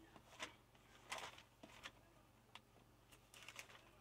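Faint, scattered clicks and light rustles from handling something on a studio desk close to the microphone, about half a dozen over four seconds, in otherwise near silence.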